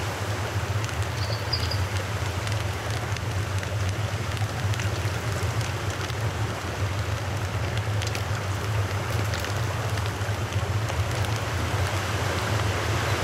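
Steady outdoor rushing noise with a low rumble underneath and scattered faint crackles, with a brief faint high chirp about a second in.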